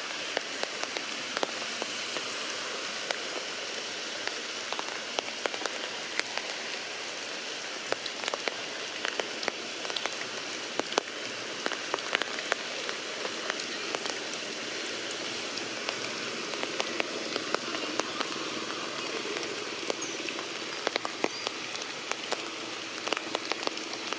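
Heavy rain falling steadily, with many sharp drops pattering and dripping close by.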